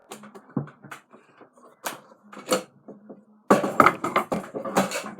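Scattered knocks and clicks of objects being handled, then a louder stretch of clattering and rustling starting about three and a half seconds in.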